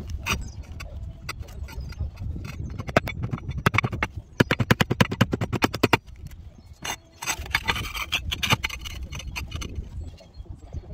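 Hand work fitting a solar roof hook and its flashing into clay roof tiles: scraping and clicking of the flashing and tiles under gloved hands and a hand tool, with a fast, even run of clicks in the middle and a longer scrape near the end.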